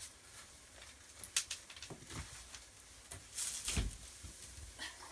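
Rustling and scattered small clicks from things being handled, with a louder rustle ending in a thump about three and a half seconds in.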